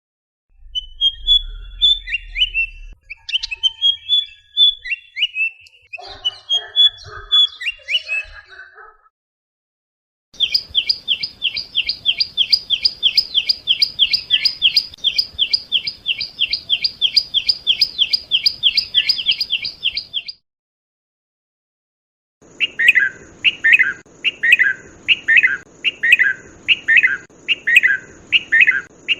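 Calls of three different birds, one after another: first a run of varied chirps, then from about ten seconds in a fast, even series of short repeated notes lasting about ten seconds, and near the end a slower series of falling notes, about two a second.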